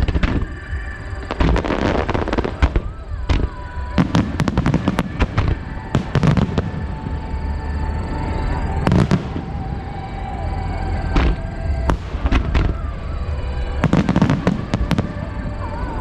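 Fireworks display: aerial shells bursting in quick, irregular succession, with many sharp bangs and crackles, some in dense volleys.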